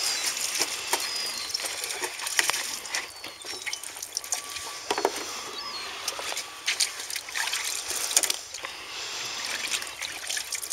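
Fresh fish being handled by hand and dropped into a bucket and crates: irregular wet clicks, slaps and small splashes over a steady hiss.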